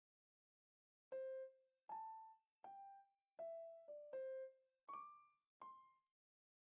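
Background music: a piano-like keyboard playing a slow melody of single struck notes, each fading away, starting about a second in.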